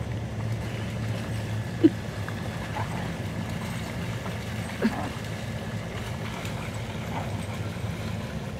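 Siberian huskies splashing and running through shallow flood water over a steady low rumble. Two short yips stand out, about two seconds in and again about five seconds in.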